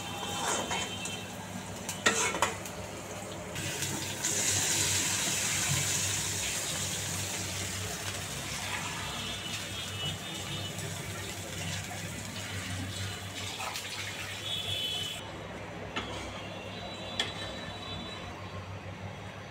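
A spatula scrapes and knocks in an iron kadai of frying onions and chillies. About four seconds in, water goes into the hot pan and sets off a loud hiss, and the sizzle slowly dies down over the next several seconds as the liquid comes to a simmer.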